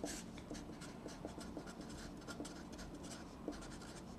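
Felt-tip Sharpie marker writing and drawing lines on paper: a faint run of many short scratchy pen strokes.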